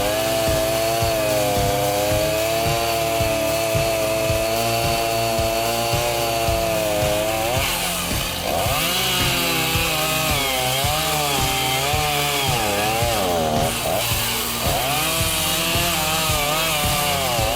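Chainsaw running at high revs, cutting through a large tree trunk. Its pitch holds steady at first, then from about eight seconds in rises and falls repeatedly as the chain bites into the wood.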